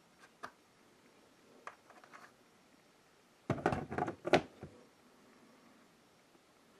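A few faint clicks, then a quick run of knocks and thuds about three and a half seconds in, from the new window frame being handled and shifted in its opening.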